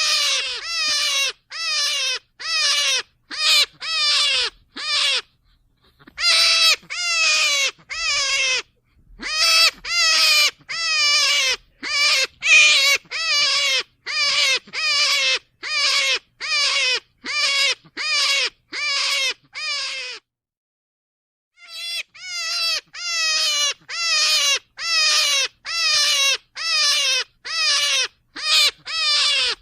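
Rabbit squealing: a long series of short, wavering cries, each falling in pitch, about one and a half a second, broken by a few short pauses and one longer pause about two-thirds of the way through.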